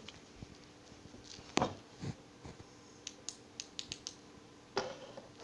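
Close handling noise: soft scattered clicks, scuffs and rustles of movement against a blanket, with a sharper knock about a second and a half in and another near the end.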